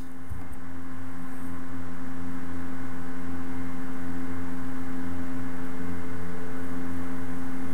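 Steady electrical hum with several low tones held constant over a faint hiss. It grows a little louder in the first second, then stays even.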